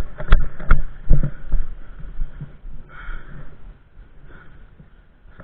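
Two sharp snaps about half a second apart in the first second, over low thumping and rustling of movement, typical of airsoft guns firing in close play; after that only quieter rustle.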